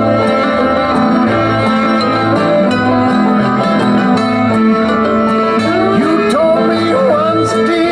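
Background music: a country-style tune led by plucked guitar over a steady low beat, with a few sliding notes near the end.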